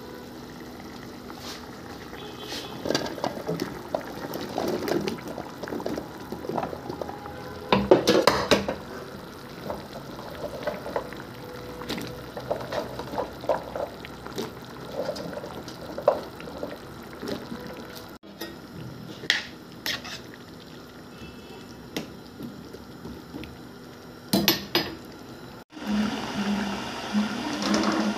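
Cooking pot sounds: irregular clinks and knocks of a utensil against a pot, with liquid sounds from tomato sauce in it. The sound breaks off abruptly twice, about two-thirds of the way through and near the end.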